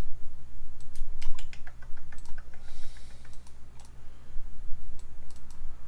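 Computer keyboard and mouse clicking, with a quick run of key clicks about a second in, over a steady low hum.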